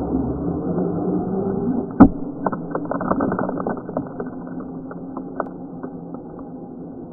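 Radio-controlled car pulling away over loose gravel: a steady motor and tyre drone that fades as it drives off. About two seconds in comes one sharp hit, followed by a run of small ticks and clicks from flung stones and grit landing.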